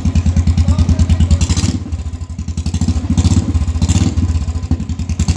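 Royal Enfield Classic 350's single-cylinder engine running through a bare free-flow C-bend header pipe with no silencer fitted: a fast, even thump of open exhaust pulses. There are short throttle blips about a second and a half in and again around three and four seconds in.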